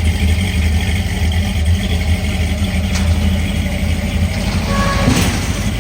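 Car engine running steadily with a low, even rumble.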